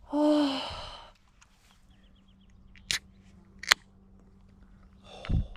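Beer cans being cracked open: two sharp clicks of ring-pulls about a second apart. Just before them comes a brief squeaky, noisy sound, and near the end a dull thud with a hiss, over a faint steady hum.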